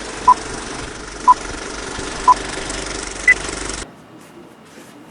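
Four electronic countdown beeps about a second apart, three at one pitch and a fourth higher, over a steady static hiss that cuts off suddenly near the end.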